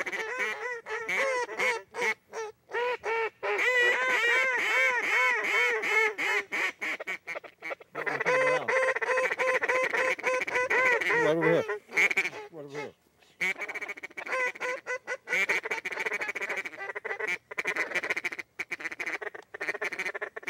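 Duck quacking: long, loud runs of rapid quacks, several a second, broken by short pauses, mallard-style calling over a duck-hunting marsh.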